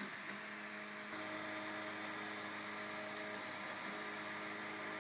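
Afinia 3D printer running as it prints in ABS plastic: a steady hum of several fixed tones from its motors over a soft hiss, the tones shifting about a second in as the head changes its moves.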